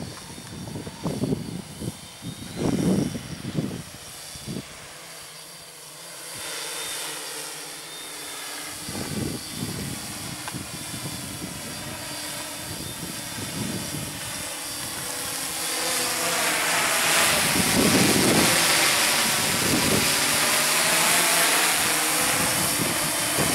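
A hexacopter's six electric motors and propellers whining steadily in flight, getting louder in the second half as it comes closer, with a wavering, sweeping tone. A few low gusts of noise sound in the first few seconds.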